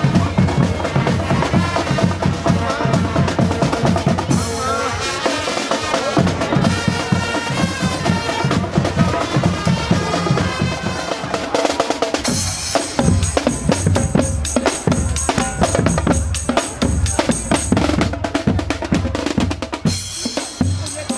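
Carnival parade music with drums. Melody and drums play together at first; from about twelve seconds in, dense drumming with snare and bass drum takes over.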